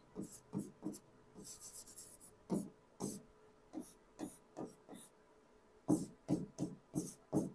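Hand writing on a board: a run of short, scratchy pen or chalk strokes as letters are formed, with a brief pause just after five seconds before more strokes.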